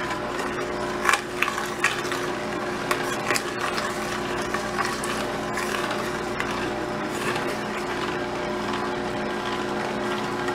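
Vertical slow juicer running with a steady motor hum, with irregular cracks and crunches as chunks of fruit and vegetables are dropped in and crushed, mostly in the first few seconds.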